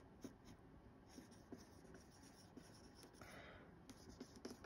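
Marker pen writing on a whiteboard: faint scratchy strokes of the felt tip with small ticks as it touches and lifts from the board.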